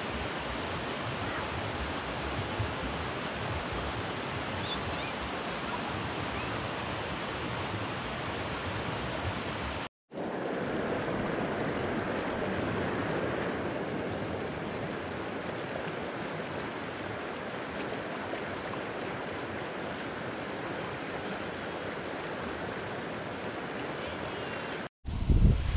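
Steady rush of running water, cut off abruptly for an instant about ten seconds in and again near the end.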